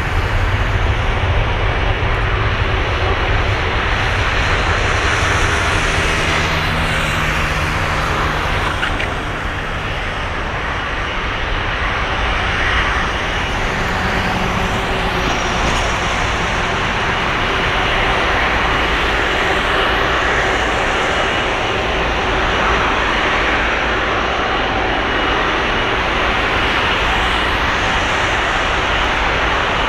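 Jet engines of an Airbus A330-300 at low taxi thrust: a steady, continuous engine roar and whine as the airliner rolls slowly along the taxiway.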